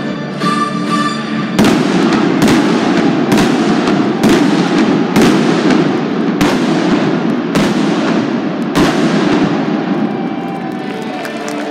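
Victory fireworks going off under a domed stadium roof: eight sharp bangs about one a second, each with an echoing tail, over a dense hiss and crackle of falling sparks. Orchestral music plays before the first bang, and the bangs stop about three seconds before the end.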